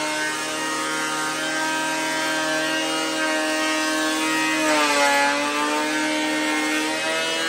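Makita KP312 12-inch beam planer cutting along an 8x8 timber: a steady motor whine over the hiss of the cutterhead taking wood. About five seconds in the motor's pitch dips briefly and comes back up.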